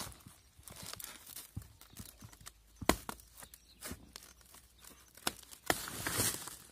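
A woven plastic sack crinkling and rustling as handfuls of dry grass and stones are stuffed into it, with a few sharp knocks along the way and a longer burst of rustling near the end.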